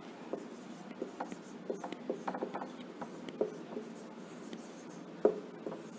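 Dry-erase marker writing on a whiteboard: a run of short, faint pen strokes, with a sharper tap about five seconds in.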